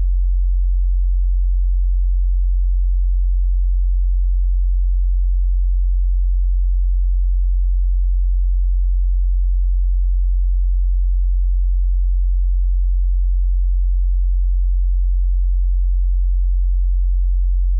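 A steady, unchanging 45 Hz sine-wave tone: a pure, very low synthetic hum.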